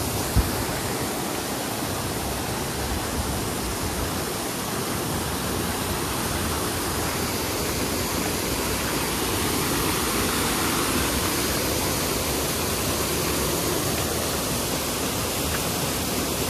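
Steady rush of water pouring over a waterfall on an urban canal cascade, an even noise with no breaks.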